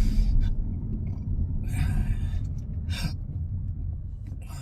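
A man's involuntary hiccups and gasping catches of breath from intractable hiccups: a few short, sharp bursts, one about two seconds in and a briefer one about three seconds in. A steady low rumble runs underneath.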